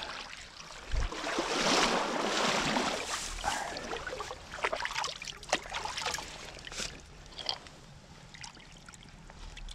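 Water splashing and sloshing as a landing net holding a brown trout is drawn through the shallows to the bank, with a thump about a second in and the heaviest splashing just after. Smaller splashes and drips follow, then the stream's steady trickle.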